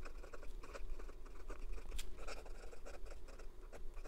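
Visconti Mirage Mythos fountain pen with a broad steel nib writing quickly on paper: a run of short, quick scratching strokes.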